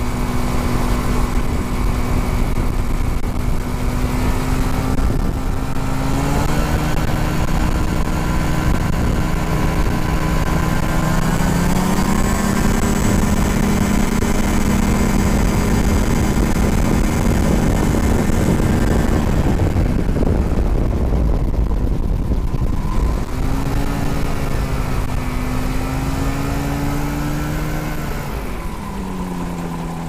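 Gyrobee ultralight gyroplane's engine and propeller running in flight, heard from the open seat with a low rumble of wind on the microphone. The engine pitch steps up twice in the first half, drops back about two-thirds through as the throttle comes off while the machine comes down low over the field, then rises and falls once more near the end.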